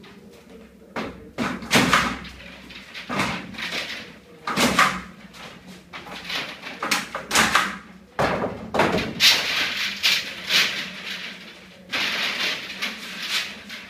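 PEX underfloor-heating pipe being pulled off its coil and laid over foil-faced insulation boards: irregular plastic rustling and scraping, with sharp clacks from a long-handled staple tacker pinning the pipe down. Longer stretches of scraping come about nine seconds in and again near the end.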